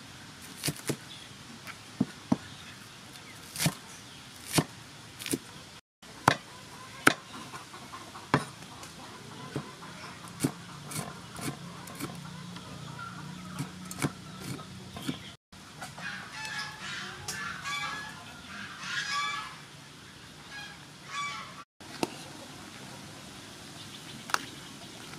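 Cleaver chopping greens and chillies on a wooden chopping board: sharp knocks at uneven intervals, some much louder than others, through the first half. Later comes a run of repeated bird calls for several seconds.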